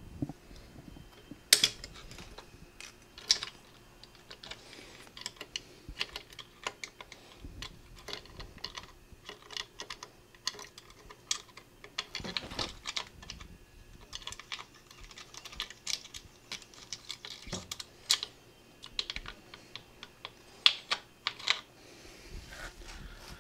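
Irregular small metallic clicks and taps of pliers and metal parts as a snap ring is worked out of the clutch adjustment screw in a Harley-Davidson Sportster's primary cover. One sharp click comes about a second and a half in and another near the end.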